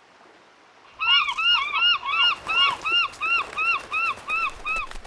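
Seagulls calling: a fast run of short, arching squawks, about three a second, starting about a second in.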